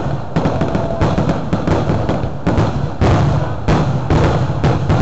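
Aerial fireworks shells bursting in quick succession: a dense run of sharp bangs over a heavy low rumble, several bursts a second.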